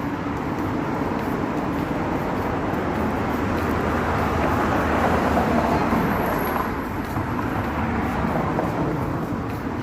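Steady road traffic noise, a wash of passing vehicles with a low rumble, swelling a little about halfway through.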